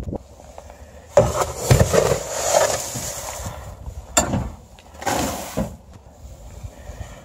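Dry feed grain poured from a metal scoop into a rubber feed bucket: a rushing patter of grain, a long pour then a shorter second one, with a single sharp knock between them.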